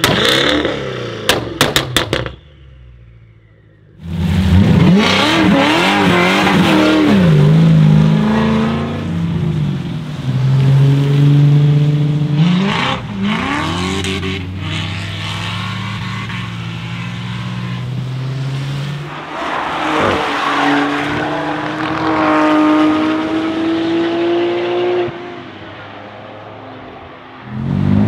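Tuned BMW engines revving hard. About 1–2 s in there is a quick run of sharp exhaust pops. After a brief lull, cars accelerate and rev through gear changes, with tyre squeal at times.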